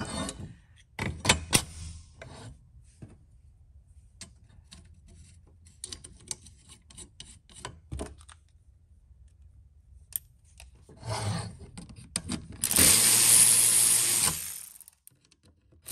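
Parts and tools handled on a workbench: a few sharp clicks and knocks, then scattered light ticks, followed by a loud hiss lasting about two seconds near the end.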